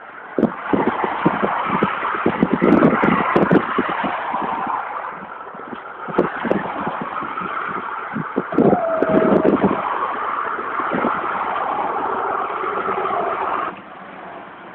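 Road traffic: a loud, steady rush of passing-vehicle noise with crackling knocks, which drops away sharply near the end.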